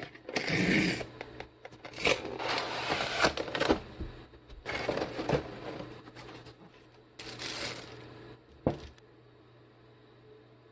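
Packaging being handled and opened: several bursts of rustling and crinkling with a few sharp taps and clicks, ending with a short knock about nine seconds in.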